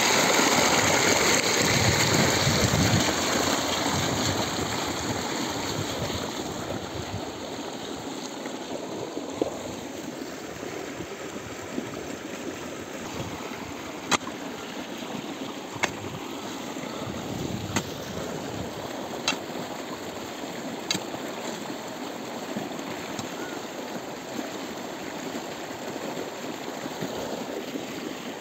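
Water gushing from an irrigation pipe outlet into a field channel, loud at first and falling over the first six seconds to a steady rush. Over it, from about nine seconds in, a long-handled digging tool strikes the soil in about half a dozen sharp knocks, a second and a half to a few seconds apart.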